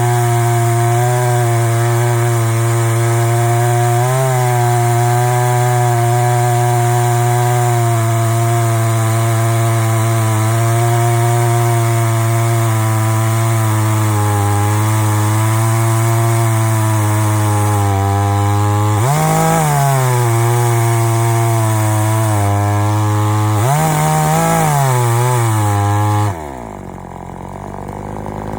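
Chainsaw in a chainsaw mill running at full throttle under steady load, ripping a slab from a log with its flipped 22-inch bar. Near the end the engine speed shoots up sharply twice as the load comes off. Then the throttle is released and it drops to a lower idle.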